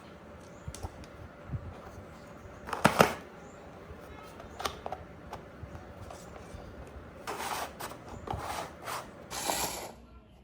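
Hands working with small craft parts and tools: scattered clicks and light knocks, a sharper knock about three seconds in, and rustling toward the end.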